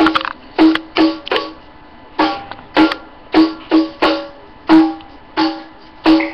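Background keyboard music: about a dozen short piano-like notes, mostly on the same pitch, each struck sharply and fading fast, in an uneven rhythm.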